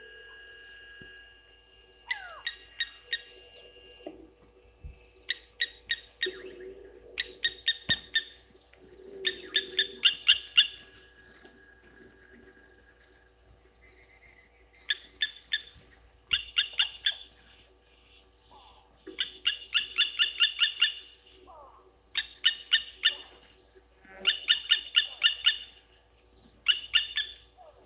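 Blacksmith lapwing calling: short runs of sharp, evenly spaced notes, three to eight at a time, repeated every second or two. A steady high insect whine runs underneath.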